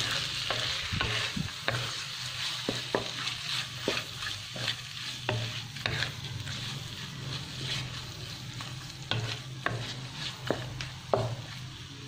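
Shrimp sizzling in hot oil in a nonstick wok over high heat, with a wooden spatula scraping and knocking against the pan at irregular moments as they are stirred.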